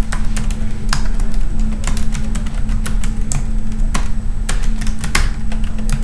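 Computer keyboard keys clicking in irregular taps as a username and then a password are typed, over a steady low hum.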